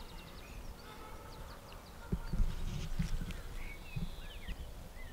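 Small birds chirping in short calls throughout, with a run of low dull thumps starting about two seconds in.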